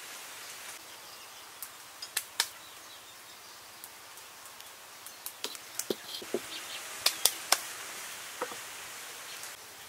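Scattered sharp knocks and clinks of kitchenware being handled: a wok taken down and a stone mortar and pestle set on a wooden table. A cluster of them comes in the second half, over a faint steady background hiss.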